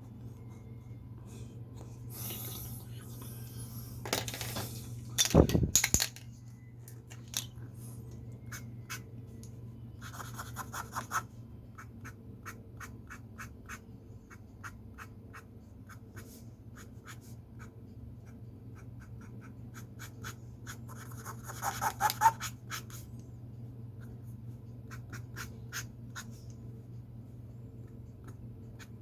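Pen or pencil scratching and tapping on paper during hand drawing, in short strokes over a steady low room hum. A brief falling squeak comes about five seconds in.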